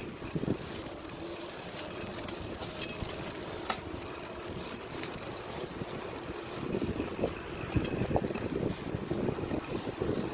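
Wind buffeting the microphone of a camera riding along on a moving bicycle, with rolling road rumble underneath. There is one sharp click about four seconds in, and the buffeting grows rougher and louder in the second half.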